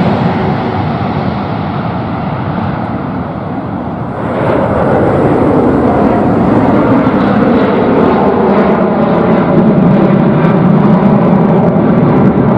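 Jet engines of a Boeing 777. First a landing 777-300ER's GE90 engines pass and fade. About four seconds in, a departing 777-200ER's engines at climb power take over as a loud, steady roar.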